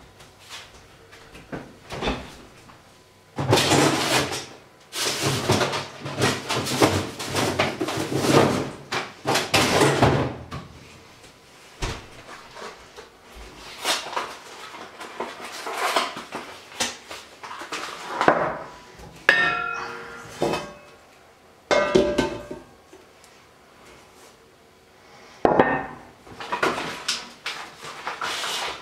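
Metal cookware being handled: pots, lids and utensils clattering and knocking irregularly, with a short ringing metal tone about two-thirds of the way through. Near the end a stainless steamer insert is set onto an enamelled cast-iron pot.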